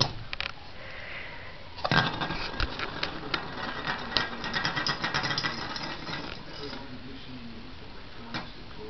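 A dreidel is spun on a hard surface: a knock as it is launched a little under two seconds in, then about four seconds of rapid, irregular clattering as it spins and wobbles, dying away around six seconds in.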